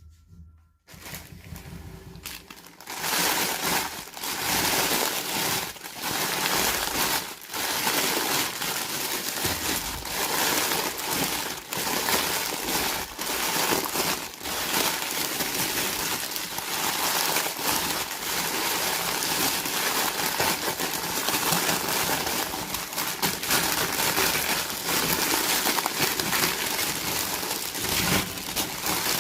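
Plastic toy packaging crinkling and crackling as it is handled and opened, with many small clicks and rustles, starting about a second in.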